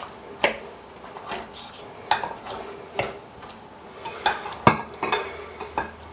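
Two steak knives chopping soft roast vegetables in a bowl: irregular clinks and knocks of the blades against each other and the bowl, with the sharpest one about three-quarters of the way through.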